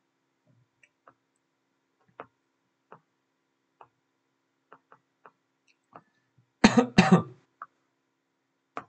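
A person coughs twice in quick succession, loudly, about two-thirds of the way through. Before it come a dozen faint, scattered clicks.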